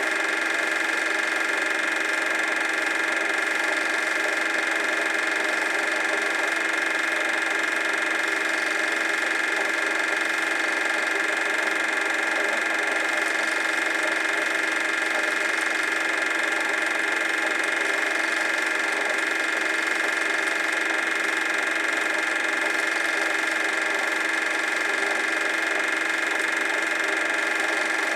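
Super 8 film projector running: a steady motor whir and mechanical rattle that does not change.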